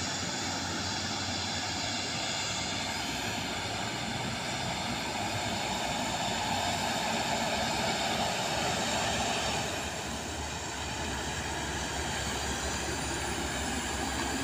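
A heavy coal-haul truck pulling two dump trailers driving along the road, a steady drone of engine and tyres that swells a little around the middle as it comes nearer.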